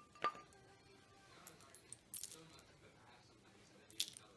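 Faint handling noise: soft rustling with a few light clicks and clinks as hands press a yarn bundle into place. The clicks fall just after the start, around the middle and near the end.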